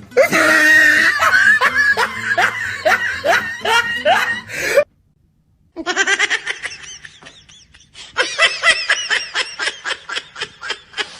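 Hearty human laughter in quick repeated bursts. A sudden second of silence just under halfway marks a cut, and then another stretch of rapid laughing follows.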